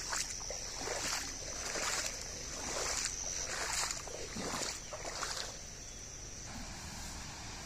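Flooded river ambience: a steady high-pitched insect drone that cuts off about six and a half seconds in, over repeated short hissing surges of moving floodwater.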